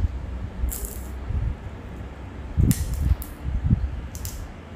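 A person chewing a mouthful of bakso and mustard greens, with several short wet smacking mouth sounds about a second in, near three seconds and again a little after four seconds.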